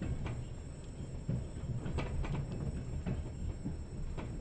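Inside a moving type 120A passenger coach: the steady low rumble of the running gear, broken by several sharp, irregular clicks and knocks from the wheels and the coach.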